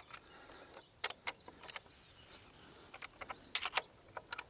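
Hand tools being handled, with scattered sharp clicks and clacks, several in quick succession about three and a half seconds in and again near the end. Faint bird chirps sit in the background.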